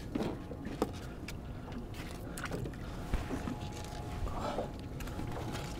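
Scattered faint clicks and knocks of a crab snare and small crabs being handled at the side of a boat, over a low steady rumble.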